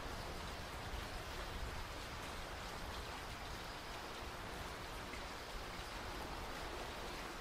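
Steady rain falling, an even hiss with no distinct events.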